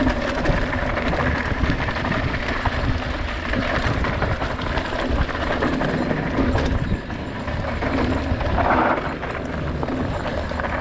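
Mountain bike rolling fast down a dirt trail: continuous tyre noise with the bike rattling and clattering over the bumps.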